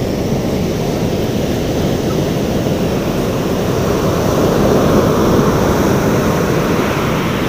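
Ocean surf breaking and washing up the beach, mixed with wind rumbling on the microphone, a steady rush that swells a little around the middle.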